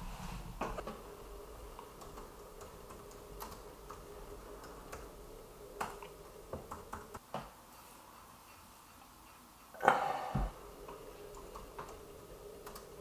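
Typing on a MacBook Pro laptop keyboard: scattered, irregular key clicks, with one louder knock about ten seconds in.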